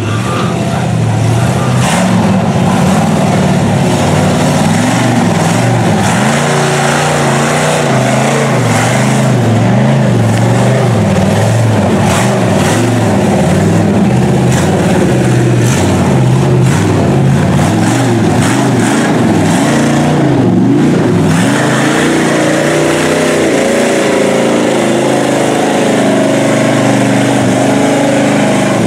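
Engines of lifted pickup mud trucks on oversized tyres, revved hard through mud and water, their pitch climbing and dropping with the throttle.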